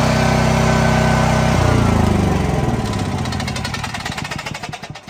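Champion Tri Fuel 10,000-watt portable generator's single-cylinder engine running steadily, then shut off about a second and a half in: its pitch sinks and it coasts down toward a stop.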